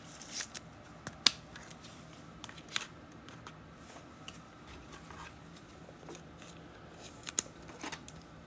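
Trading cards and plastic penny sleeves being handled: soft rustling with a few sharp clicks and ticks, the loudest about a second in and a pair near the end.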